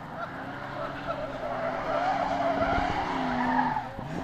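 Car tyres squealing in long, wavering skids over engines held at high revs, as cars spin through burnouts and doughnuts. The squeal grows louder over the first two seconds.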